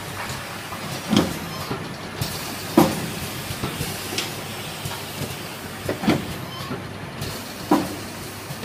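Automatic jerrycan filling and capping line running, with a steady mechanical hum and hiss. Four sharp clunks sound at uneven intervals through it, the loudest about three seconds in.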